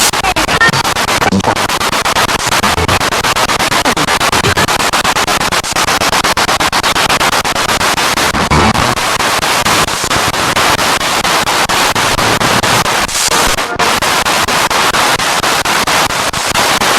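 Spirit box radio sweeping rapidly through stations: loud, continuous static chopped into fast even clicks, with brief snatches of tone between stations.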